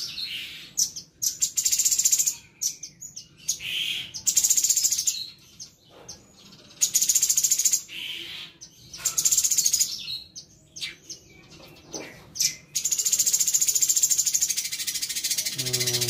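Caged cucak cungkok leafbird singing mimicked chatter of other songbirds. Short bursts of very high, rapid rattling chatter, each about a second long, alternate with a few lower whistled notes, then run into one unbroken stretch of chatter near the end.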